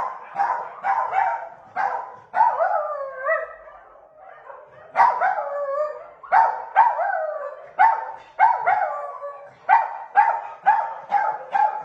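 A dog barking over and over in high yappy barks, a few drawn out into whining yelps, with a short lull about four seconds in. Near the end the barks come quicker, about three a second.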